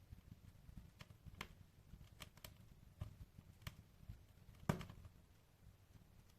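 Quiet wood fire in a fireplace crackling: irregular sharp pops and snaps, the loudest a little under five seconds in, over a faint low rumble.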